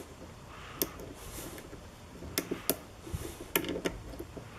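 Lock pick and tension wrench clicking against the pins and keyway of a pin-tumbler lock being picked: a handful of small sharp clicks, some in quick clusters of two or three about two and a half and three and a half seconds in.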